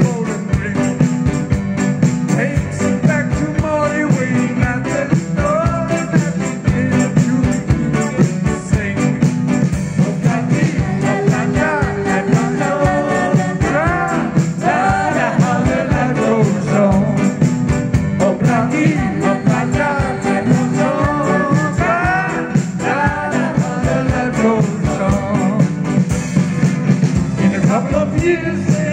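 Band music playing continuously with a steady beat and a melody line that bends up and down in pitch.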